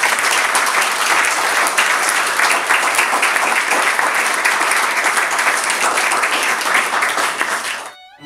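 A room full of people applauding, many hands clapping densely together; the applause stops suddenly near the end.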